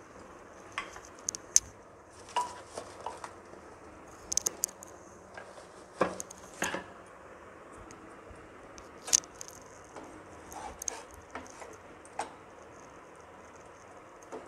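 A metal spatula clinking and knocking against a tawa in scattered, irregular strikes while stuffed paratha pieces are shifted on it, over a low steady background noise.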